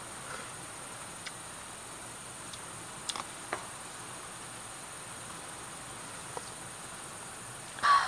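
Night insects, crickets, chirping in a steady, high, unbroken tone. A few faint clicks are heard, and there is one louder tap near the end.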